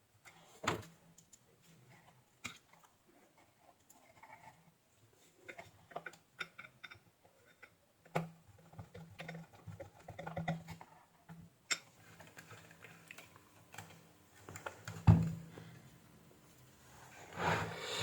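Scattered small clicks, taps and knocks of tools and metal parts being handled on a workbench during amplifier reassembly, with a sharp knock about three-quarters of the way through.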